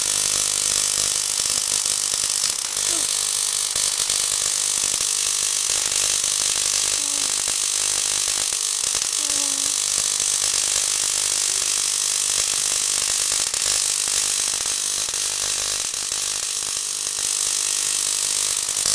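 Small Tesla coil powered by an oil-burner ignition transformer, discharging continuously with a steady, hissing buzz of short sparks.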